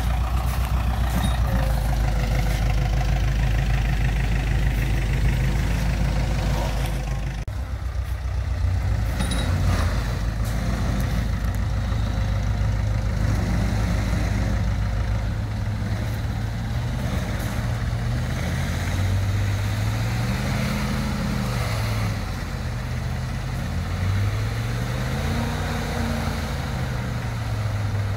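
Tractor and pickup engines running under load while the tractor tows the mud-stuck RAM 1500 out. The sound changes abruptly a quarter of the way in, and in the second half the engine pitch rises and falls repeatedly.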